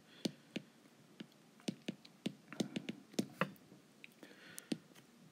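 Stylus tip tapping on a tablet's glass screen while handwriting: irregular sharp ticks, a few per second.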